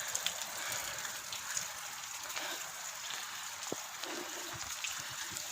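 Steady heavy rain falling and pattering on surfaces, with small scattered drips and taps.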